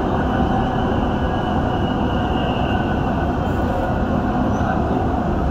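Dubai Metro train running between stations, heard from inside the carriage: a steady rumble of wheels on the rails with a faint high whine above it.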